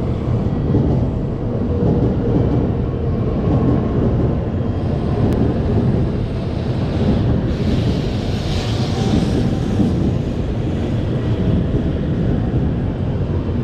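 A Tokaido Shinkansen bullet train pulling into the platform and slowing: a steady low rumble, with a rushing hiss that swells in the middle and dies away about ten seconds in.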